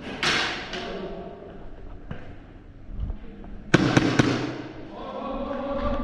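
Airsoft guns firing. A sudden noisy burst comes right at the start, and a quick volley of sharp snaps about four seconds in, with a voice calling out near the end.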